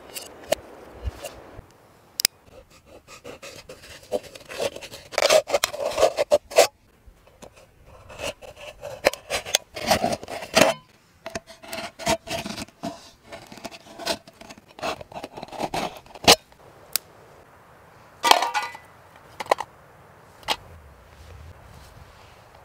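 A knife scraping and cutting into a thin steel tin can, in irregular strokes with a squeal of blade on metal, along with clicks and taps as the can is handled.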